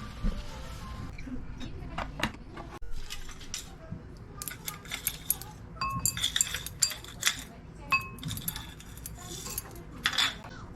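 Dishes, glassware and cutlery clinking: a run of light knocks and clinks, many with a brief ringing tone, busiest from about four seconds in.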